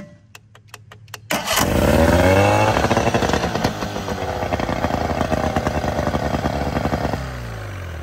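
A quick series of clicks at the outboard motor's sticking starter. Then the outboard suddenly fires and runs at a high rev, having started unexpectedly while in gear. Near the end it winds down, falling in pitch.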